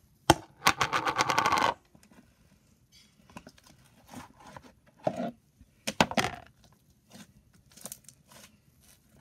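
Clear plastic slime container being opened and handled: a sharp click, then a quick run of clicks, about ten a second, lasting about a second. After that come scattered faint taps and rustles, with two louder knocks about five and six seconds in.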